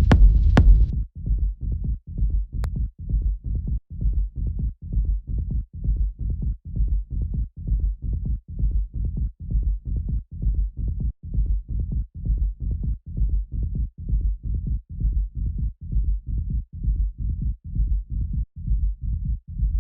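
Techno track playing back: a full mix with crisp hi-hat ticks for about a second, then the highs drop out and only a muffled low end is left, a steady pulsing kick drum and bass line. One short sharp click sounds a little after two and a half seconds.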